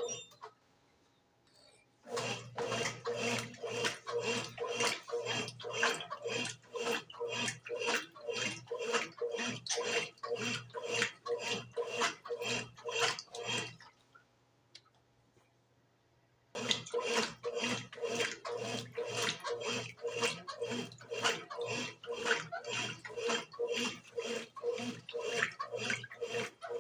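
Brastemp BWG11 washing machine agitating a load: a steady motor hum with rhythmic water sloshing, about three strokes a second, stopping twice for a couple of seconds before agitation resumes.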